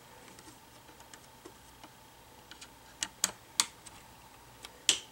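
Plastic screen bezel of an Acer Aspire V5-561P laptop being pried loose with a spudger, giving scattered clicks and snaps: faint ticks at first, then three sharper clicks about three seconds in and a louder one near the end.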